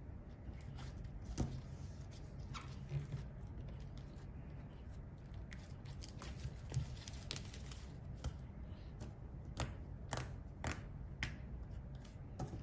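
Hands stretching, squeezing and poking homemade slime, making irregular sticky clicks and pops over a low steady hum.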